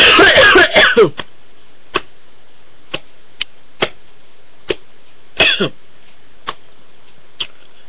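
A man coughing hard in a brief fit, loud for about the first second. After it come faint, scattered single clicks and one short throaty sound about five and a half seconds in.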